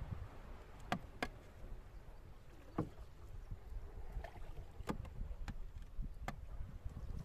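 Small wooden boat being poled through shallow water with a bamboo pole: a low steady rumble with about six short sharp knocks and splashes as the pole works in the water and against the boat.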